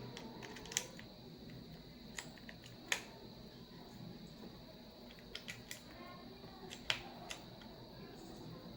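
Plastic keycaps being pressed back onto a mechanical keyboard's switches: faint, sharp single clicks at irregular intervals, some in quick little groups.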